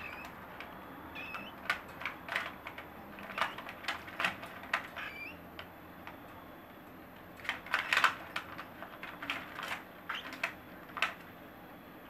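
Baby cockatiels tapping and clicking on the bars of a metal wire cage: irregular sharp clicks in clusters, loudest about eight seconds in, with a few short soft chirps.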